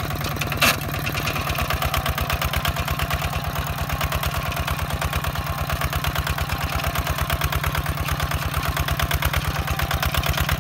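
Single-cylinder diesel engine of a two-wheel walking tractor running steadily under load while pulling a plough through a field, with a rapid, even chugging beat. A short sharp knock sounds a little under a second in.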